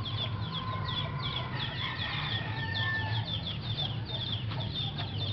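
Birds chirping rapidly and continuously, many short high chirps overlapping, over a steady low hum.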